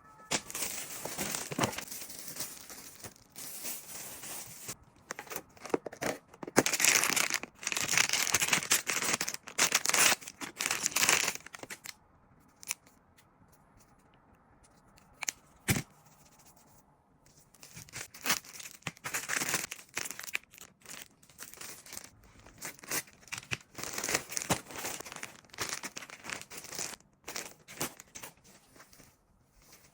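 Packaging being torn open and crumpled by hand: irregular bursts of tearing and crinkling, with a quieter lull midway broken by a single sharp click.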